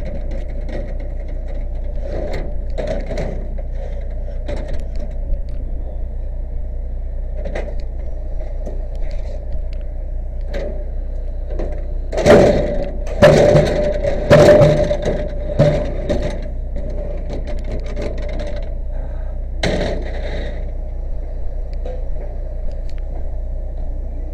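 A fire engine's motor running steadily under irregular knocks, cracks and scrapes of wood and metal being handled or broken. A cluster of louder clattering impacts comes about halfway through, and another sharp burst a few seconds later.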